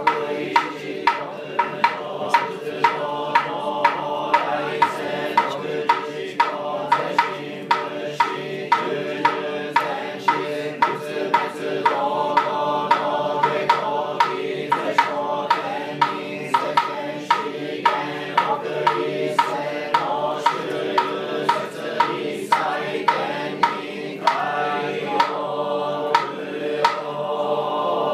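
A group of voices chanting a Buddhist sutra together on a steady recitation tone, kept in time by a sharp struck percussion beat about twice a second.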